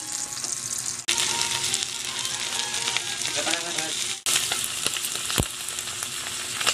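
Dried fish frying in oil in a wok, with a steady sizzle. The sizzle cuts out sharply twice, about a second in and again about four seconds in.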